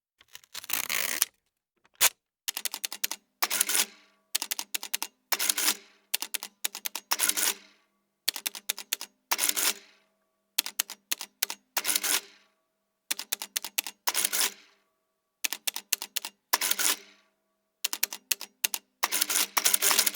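Mechanical adding machine being operated: a few quick key clicks, then a short clatter of the mechanism cycling, repeated about a dozen times with brief pauses between.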